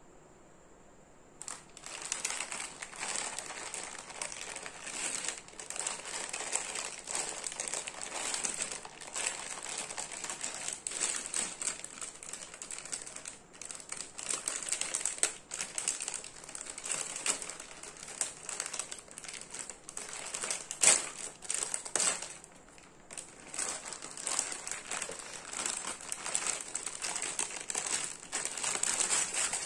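Plastic candy bag crinkling and rustling as hands handle it and tear it open, with many sharp crackles. It starts about a second and a half in and goes on, with one short lull near the end.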